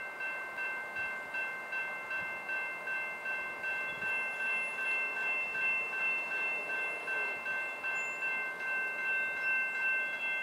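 Railroad level-crossing warning bell ringing in a steady, quick rhythm, about three strokes a second, each stroke sounding the same bright multi-pitched ding.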